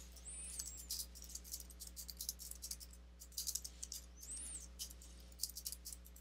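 Computer keyboard typing: a run of quick, faint keystroke clicks. Two brief high chirps sound over it, one right at the start and one about four and a half seconds in.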